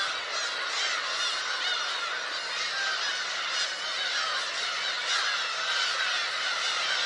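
Black-tailed gull colony calling without a break: many gulls' short, arching calls overlapping into a dense, steady chorus.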